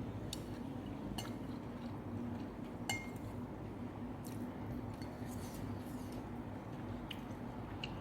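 Someone eating noodles: soft wet mouth sounds and scattered light clicks of utensils against a bowl, with one sharper clink about three seconds in, over a steady low hum.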